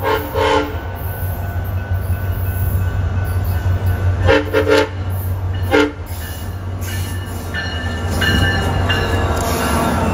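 SunRail diesel locomotive sounding three short horn blasts as it approaches, over the steady drone of its engine. From about seven seconds in, a high squeal from the wheels and brakes as the train slows into the platform.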